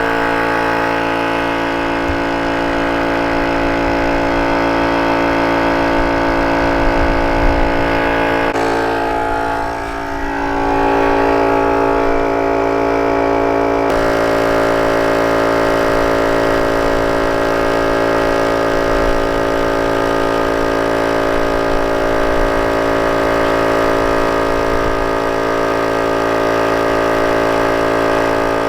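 Air compressor motor running steadily, filling a flat tire. Its tone shifts abruptly about 14 seconds in, after a brief dip in level around 10 seconds.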